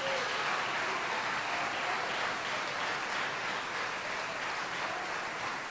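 Congregation applauding, an even, steady clapping that eases off a little toward the end.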